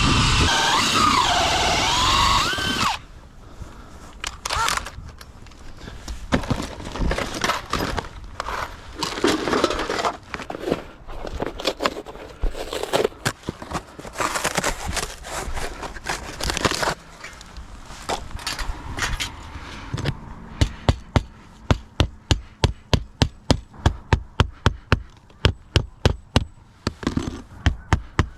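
A power tool runs loudly for about three seconds and cuts off, followed by scattered knocks and handling noises; about two-thirds of the way in, steady hammer blows begin at about two a second, the strokes of fastening a roof vent.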